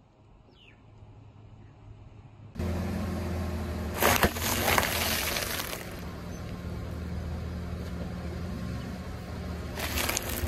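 A car's engine starts running steadily about a quarter of the way in. Its tyre rolls onto sealed snack packets and crushes them with loud crunching and crackling of plastic and dry contents for about two seconds, then again briefly near the end.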